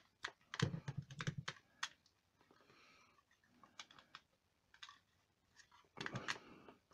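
Parts of a die-cast Transformers Predacon figure clicking and tapping as it is handled and transformed by hand. The clicks are irregular: a cluster with soft knocks in the first second or two, a few scattered ticks, and another short cluster near the end.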